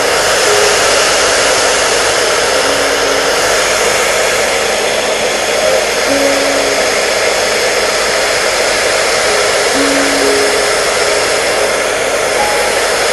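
Hair dryer running steadily: an even, unbroken blowing hiss. Underneath it, a faint slow melody of soft single notes.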